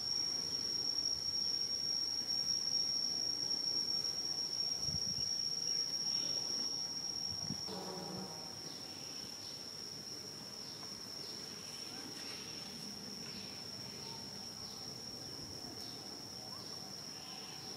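Insects droning outdoors: one steady high-pitched tone that holds throughout. A brief pitched sound comes about eight seconds in.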